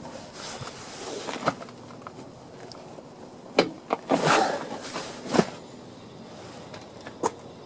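Bicycle freewheel being unscrewed anti-clockwise from a rear wheel hub on a freewheel remover tool held in a vise. A handful of sharp metallic clicks and knocks, with a longer rattling scrape about four seconds in.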